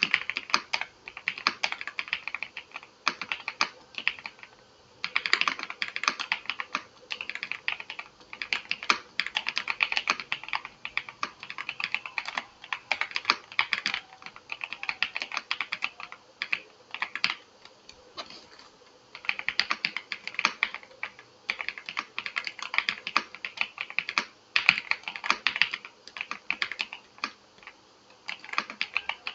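Typing on a VGN V87 Pro mechanical keyboard with hot-swap switches: fast runs of key clicks and clacks, stopping briefly now and then.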